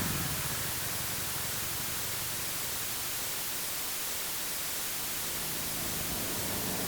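Steady, even hiss of background noise with no engine tone in it, between two motorcycle pass-bys; the last of the passing motorcycle fades out right at the start.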